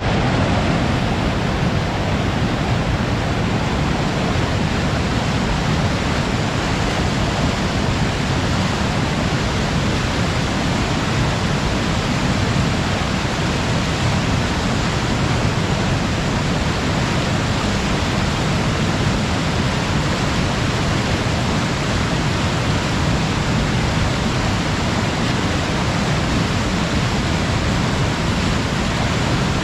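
Water cascading over rocks in a river gorge: a steady, unbroken rushing with a deep low rumble under it.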